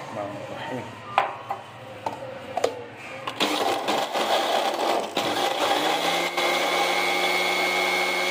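A few sharp clinks as ice goes into a plastic blender jug, then about three seconds in the countertop blender's motor starts and runs steadily, crushing the ice into the milkshake, with a higher whine joining near the end.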